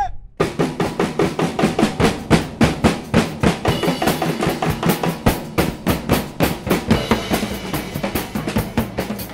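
Rapid drumming on snare and bass drums, dense strikes several to the second, starting abruptly about half a second in.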